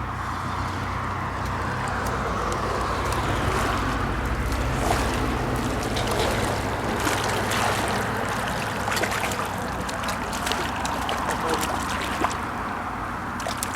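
Moving water rushing and sloshing, with a steady low rumble underneath and scattered light clicks.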